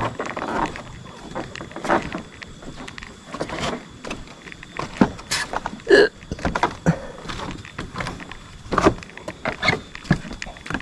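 Footsteps crossing a footbridge of bamboo poles, the poles knocking and clattering irregularly underfoot. One short pitched sound comes about six seconds in.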